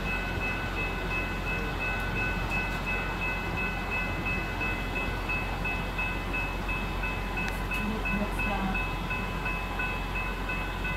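Steady rushing of floodwater under an electronic warning signal: several steady high tones, the highest of them pulsing a couple of times a second.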